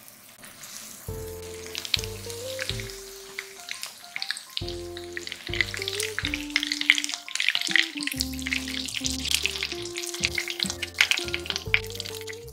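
Batter-coated chicken tempura frying in shallow oil: a dense sizzle with rapid crackling and spitting of the oil, thickening about five seconds in. Light background music with a stepping melody plays over it from about a second in.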